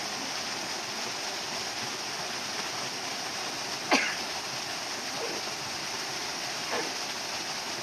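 A steady rushing noise, like running water, with one short, sharp call about four seconds in that sweeps quickly down in pitch.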